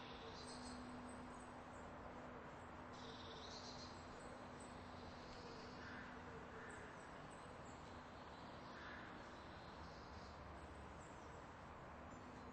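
Near silence: faint steady background noise with a low hum and a few faint, scattered chirps; no bell ringing is heard.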